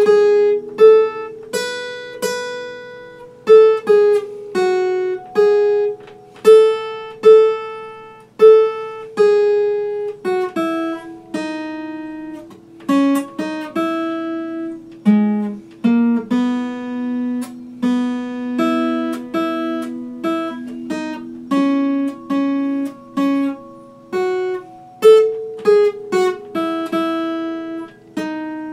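Epiphone steel-string acoustic guitar played solo, chords and single notes plucked and left to ring, with a sharp attack every second or so.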